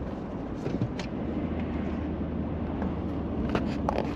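Steady road and engine noise inside a moving truck's cabin, with a low hum and a few light clicks near the end.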